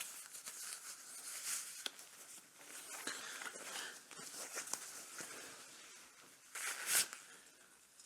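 Faint, irregular rustling and scraping with a few light knocks as things are handled, and a louder brief scrape or rustle about a second before the end.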